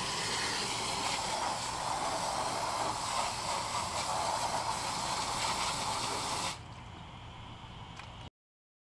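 A garden hose spray nozzle jets water onto an ATV's wheel and tire as a steady hiss and splash. About six and a half seconds in, it drops to a much quieter hiss, then cuts off to silence.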